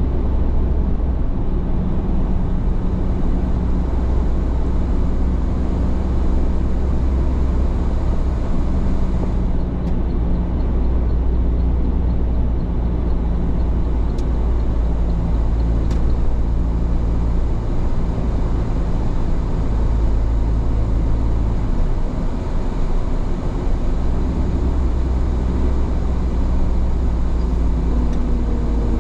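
A car driving along a road: steady engine and tyre rumble, with the engine's pitch shifting in steps as the speed changes, including a drop about three quarters of the way through.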